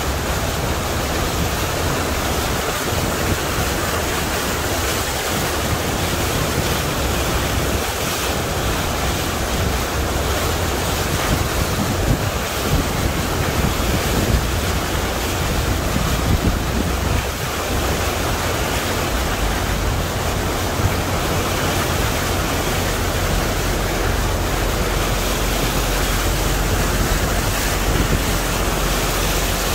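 Floodwater rushing and splashing against a vehicle as it drives through a deeply flooded street, pushing up a bow wave, with wind buffeting the microphone. A steady wash of noise with a low rumble underneath.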